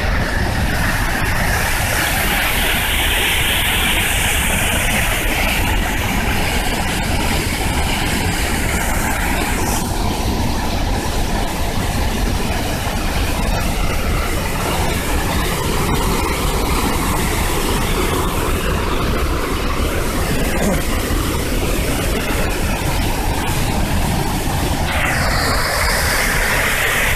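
A large waterfall in heavy flow, heard at close range: a loud, steady roar of plunging water.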